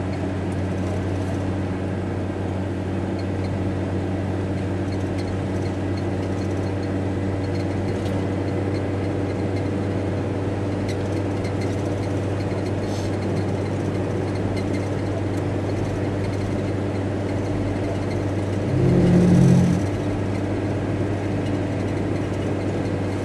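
VW T4 Transporter van heard from inside the cab while driving: a steady low engine and road drone. A louder, lower sound swells for about a second a few seconds before the end.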